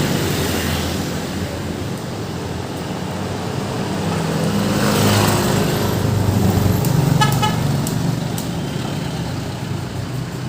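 Busy road traffic, with a large vehicle's engine passing by near the middle. A short horn toot about seven seconds in.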